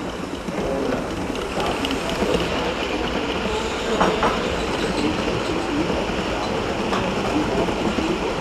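Gauge 1 live-steam model train rolling past close by, its wheels rattling and clicking over the rails as the coaches run by, with a few sharper clicks about halfway through.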